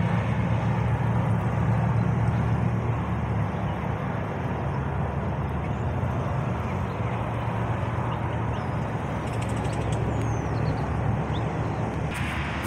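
Steady roar of freeway traffic, a continuous low rumble of passing vehicles. A few faint bird chirps come through near the end.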